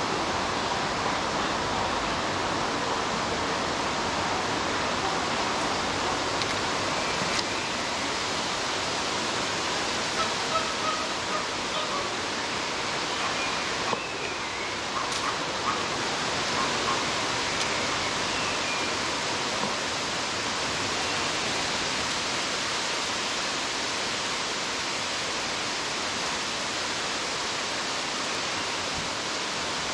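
A steady rushing outdoor background noise, with a few faint short bird chirps between about 10 and 18 seconds in.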